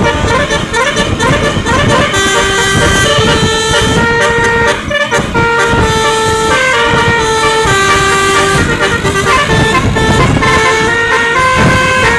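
Bus 'telolet basuri' melody horn playing a tune: a run of held horn notes stepping up and down in pitch, over a low engine rumble.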